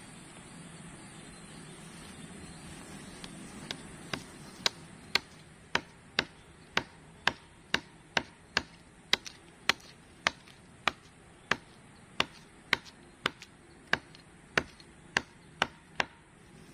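Wood being chopped with sharp, evenly spaced blows, about two a second, starting about four seconds in, over a steady hiss.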